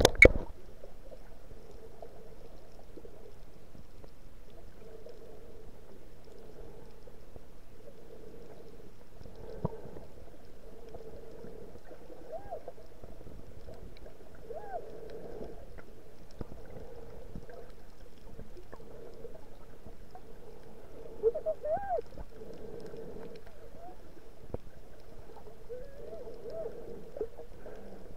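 Muffled underwater sound heard through an action camera's waterproof housing: a steady dull hum with a few knocks, the sharpest right at the start, and several brief hoot-like tones that rise and fall.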